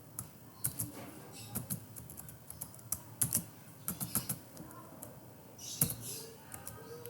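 Typing on a computer keyboard: irregular keystrokes in short runs with brief pauses, as a line of C code is entered.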